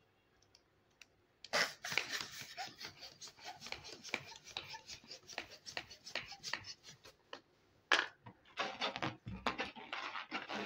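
Fingers rubbing and squeaking on a latex balloon, a dense run of short squeaks and rubs starting about a second and a half in, with a sharp snap near 8 seconds followed by more rubbing.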